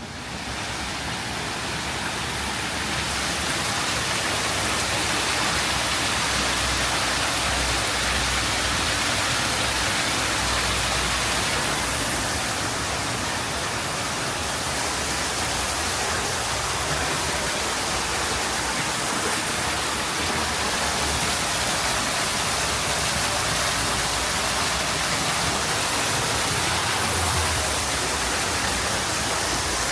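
Steady, loud rush of falling water, an even hiss that holds without change.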